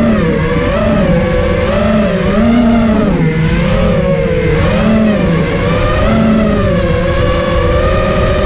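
FPV racing quadcopter's motors and propellers whining loudly, heard from on board, the pitch rising and falling about once a second as the throttle changes, then holding steadier after about six seconds.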